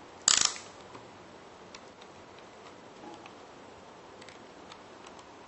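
Small hard-plastic parts of an Acid Rain B2.5 Stealth Stronghold toy clacking in the hands: a sharp cluster of clacks about a third of a second in, then faint scattered clicks as plastic knobs are worked into the track sections.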